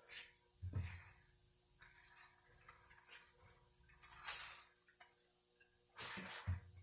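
Faint, irregular light clicks and taps of metal parts being handled while the rear band servo is fitted into a Dodge 46RE automatic transmission, with a brief scraping rustle about four seconds in.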